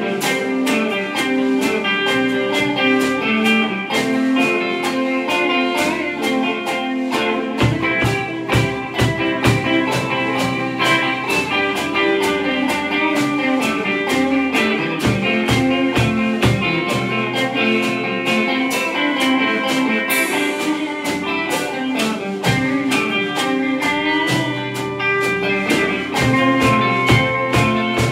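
Live instrumental rock from two electric guitars and a Gretsch drum kit: the guitars play riffs and chords over a steady drum beat with cymbals.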